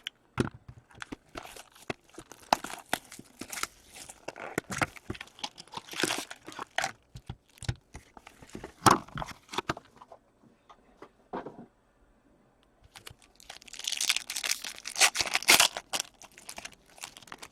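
Packaging of a box of Upper Deck Ice hockey cards being torn and crinkled open: scattered crackles and clicks, a brief pause, then a dense burst of tearing and crinkling about 13 seconds in.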